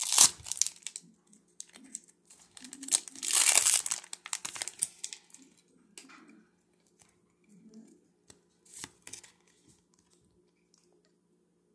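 Foil wrapper of a Pokémon booster pack crinkling and tearing as it is opened and the cards pulled out, in a few bursts, loudest about three to four seconds in, then smaller rustles that die away in the last seconds.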